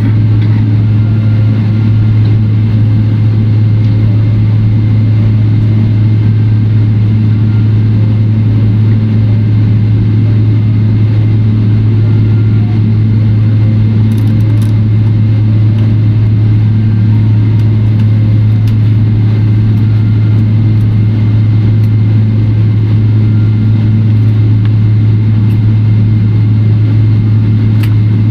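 Steady low drone inside a Boeing 777-300ER's cabin at the gate: a strong low hum with a fainter higher tone, and a few faint clicks in the middle.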